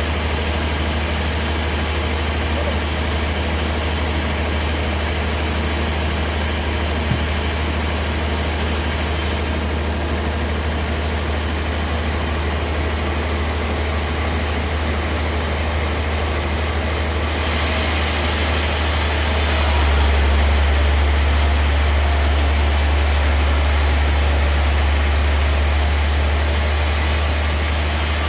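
Bandsaw sawmill running with a steady low hum. About two-thirds of the way in, a brighter hiss comes in and the hum grows louder.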